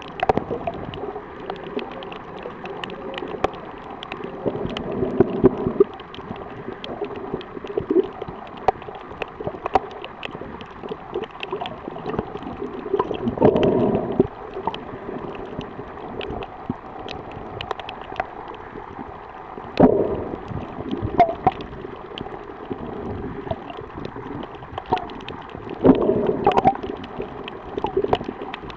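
Underwater sound picked up by a camera held below the surface: a steady muffled wash of water with frequent sharp clicks and crackles, and four louder gurgling surges of water or bubbles spread through.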